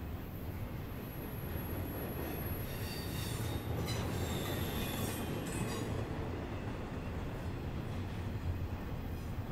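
Intermodal freight train cars rolling past with a steady rumble of steel wheels on rail. High-pitched wheel squeal rings on and off through the first six seconds or so, then fades.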